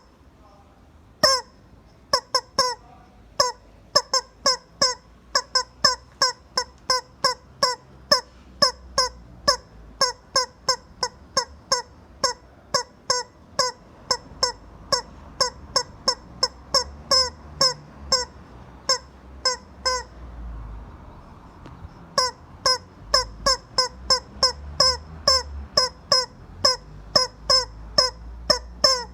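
Rubber chicken toy squeezed over and over, giving short honking squawks about two a second, with a pause of about two seconds some two-thirds of the way through.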